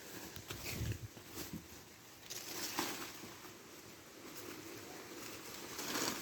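Faint, irregular scuffing and knocking as a cart loaded with firewood is moved along the ground, with footsteps.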